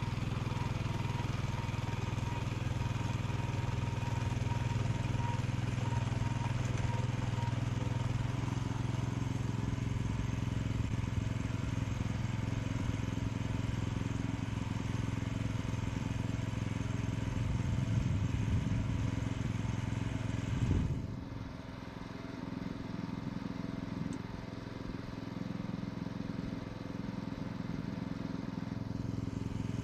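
Small petrol engine of a walk-behind two-wheel tractor with a rotary tiller running steadily. About two-thirds of the way through it suddenly drops to a quieter idle, and picks up again near the end.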